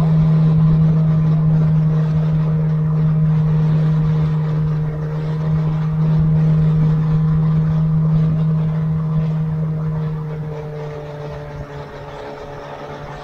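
Small motorboat's engine running steadily at speed, with water rushing and spraying along the hull. It eases off about ten seconds in, dropping in level and pitch.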